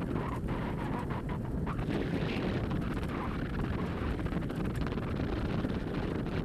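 Steady wind rumble on the microphone, with the rolling noise of a wheeled dog-mushing rig moving fast along a leaf-covered dirt trail.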